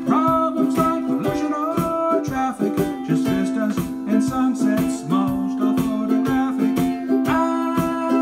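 A man singing a song while strumming a small ukulele-sized stringed instrument in a quick, steady rhythm.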